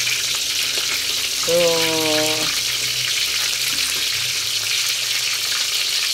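Breaded chicken pieces frying in oil in a metal wok: a steady sizzle, with a few light scrapes and taps as a metal spatula moves the pieces.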